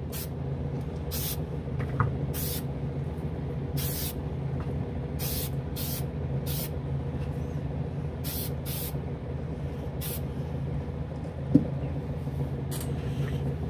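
Aerosol can of Testors Extreme Lacquer spraying in about ten short bursts as light mist coats go on, over the steady hum of a spray booth's exhaust fan. A single knock near the end.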